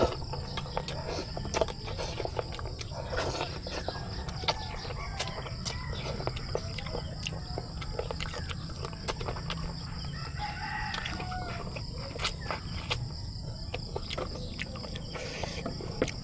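Close-up eating sounds: chewing, lip smacks and small wet clicks as chicken and rice are eaten by hand. A rooster crows in the background about ten seconds in.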